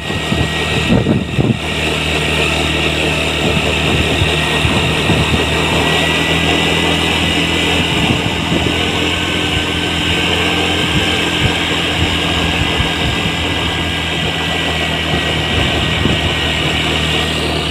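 Motor vehicle engine running steadily with an even low hum and no horn.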